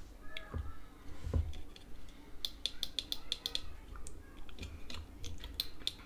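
Light plastic clicks and taps from the Logitech G703 gaming mouse's scroll wheel being handled and fitted against the opened mouse body. In the middle comes a quick run of about ten small clicks, with a couple of dull bumps early on and a few more clicks near the end.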